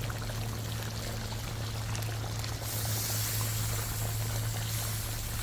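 Water being poured into a pot of crab curry on the heat, a steady splashing hiss that grows brighter about halfway through, over a steady low hum.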